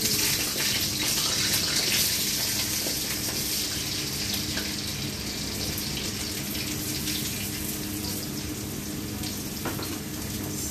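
Potatoes and carrots dropped into hot oil in a wok, sizzling, loudest in the first couple of seconds and then settling into a steady hiss.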